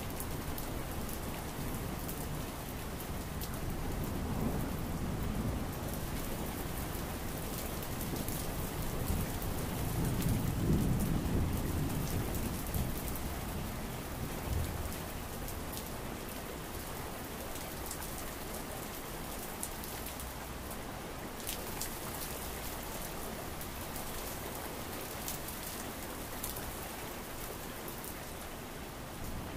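Steady rain, with a low rumble of thunder swelling a few seconds in and a louder one about a third of the way through.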